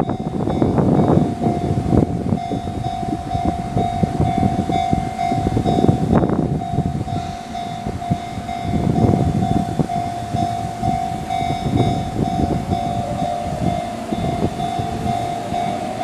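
A Sotetsu electric commuter train rumbling over a level crossing, its wheels knocking unevenly over the track. A Japanese level-crossing alarm bell rings steadily over it in a pulsing tone, and a second, slightly lower tone joins it near the end.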